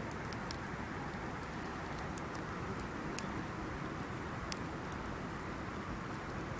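Wood bonfire burning with a steady hiss and a few sharp crackles and pops, the loudest about three and four and a half seconds in.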